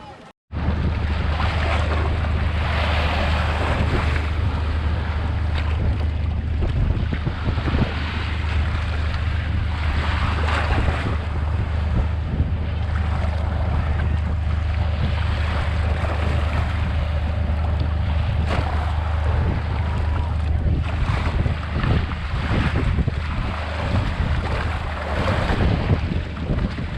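Strong wind on the microphone, a steady low drone, over the noise of surf breaking and washing up a sandy beach, which swells and fades every few seconds.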